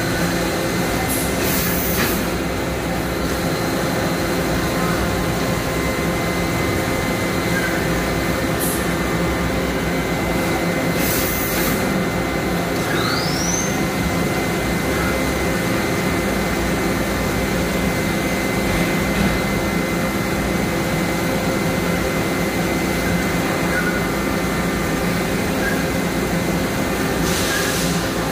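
Makino A51NX horizontal machining center running a program: a steady machine hum with several steady tones as the spindle and axes work. A few short hisses come and go, and a short rising whine sounds about halfway through.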